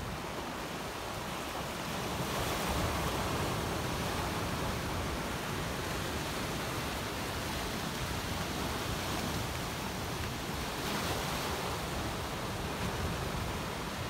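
Sea waves washing in and breaking over rocks along a rocky shore, a steady rush that surges louder a couple of times, with sea breeze on the microphone.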